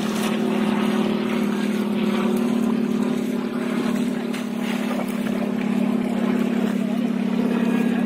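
A small engine running steadily, a constant low drone.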